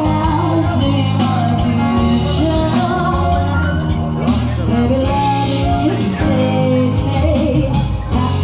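Loud rock-pop music with a singer, a full band sound with a steady bass line.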